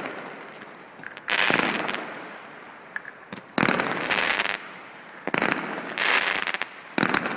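Fireworks display: about five loud shell bursts a second or two apart, each fading away with crackling.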